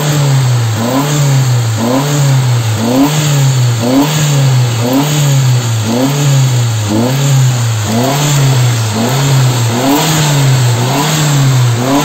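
Turbocharged car engine running with its revs rising and falling evenly, about once a second.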